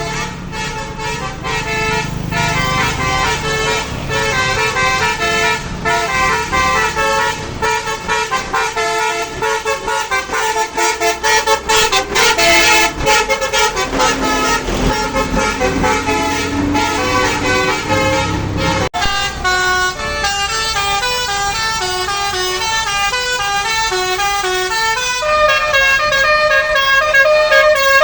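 Telolet horn on a tour bus playing a fast, melodic run of stepped notes over the bus engine's low running. A sudden break about two-thirds of the way through, then another horn tune.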